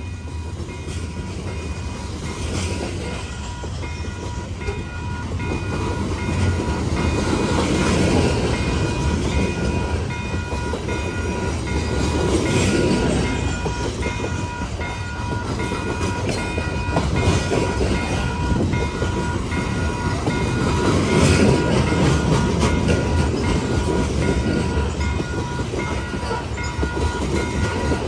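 Loaded coal hopper cars of a long freight train rolling past close by: steel wheels clicking over the rail joints over a steady rumble that swells and eases every few seconds as the cars go by.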